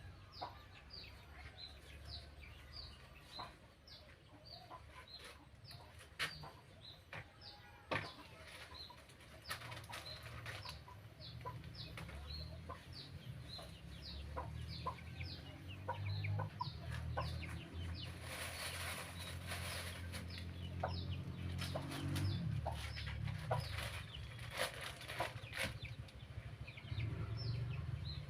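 Chickens calling: a steady run of short, high, falling peeps, two or three a second, with scattered clicks and knocks, a low hum, and a hiss lasting a couple of seconds past the middle.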